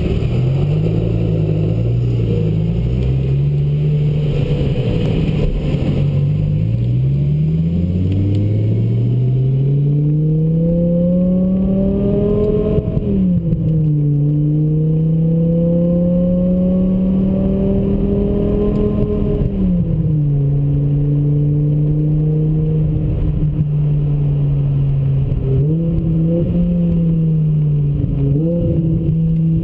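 BMW M5 E60's V10 engine heard from inside the cabin, accelerating through the gears: the engine note wavers at low speed, climbs steadily, drops sharply at an upshift about 13 seconds in, climbs again and drops at a second upshift about 20 seconds in. It then settles into a steady cruise, with two brief blips of revs near the end.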